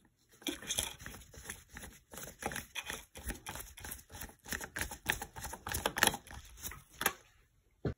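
Phillips screwdriver tightening a screw into an office chair's tilt mechanism: a run of irregular sharp clicks and ticks, several a second, that stops about seven seconds in.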